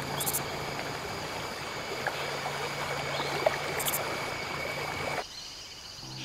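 Water rushing and splashing around the wheels of a jeep driving through a shallow river, a steady wash of noise that cuts off suddenly about five seconds in.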